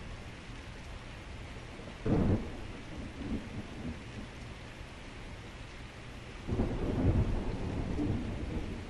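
Heavy rain falling steadily, with two deep thunder strikes: a sudden crack about two seconds in followed by a brief rumble, then a longer, louder peal from about six and a half seconds in that keeps rumbling as it slowly fades.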